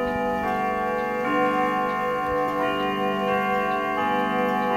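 Howard Miller grandfather clock's Urgos triple-chime movement playing its chime melody, notes struck about once a second and ringing on over each other, with the clock ticking beneath.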